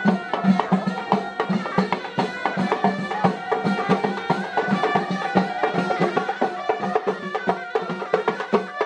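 Live traditional Moroccan procession music: reed pipes playing a held, wavering melody over a steady drum beat of about three strokes a second.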